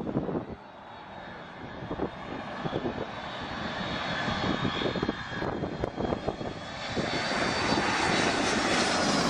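Airplane approaching to land, its engine noise growing steadily louder with a high whine, while gusts of strong wind buffet the microphone.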